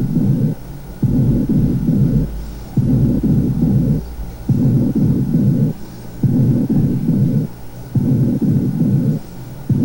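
Whispered counting of "one, two, three" heard through a stethoscope on the chest over healthy lung: a run of muffled, low bursts about every second and a half, with no words to be made out. This is the normal finding, no whispered pectoriloquy.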